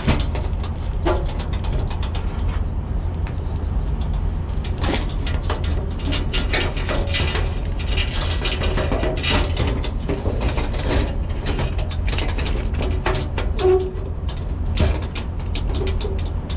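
Metal clicking, clinking and scraping as a new T-handle latch is worked into place in a metal toolbox door, many short knocks, over a steady low rumble.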